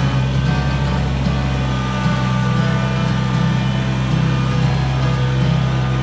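Kubota BX23S compact tractor's three-cylinder diesel engine running steadily as the tractor drives, with music playing over it.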